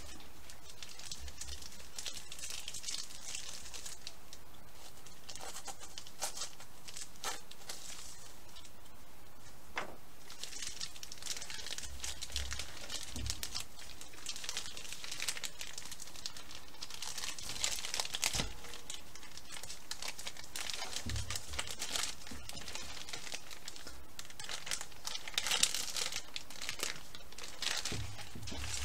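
Plastic film packaging of a ground beef tube crinkling and tearing as gloved hands work it open and squeeze the meat out, in several bouts of rustling with a few sharp clicks.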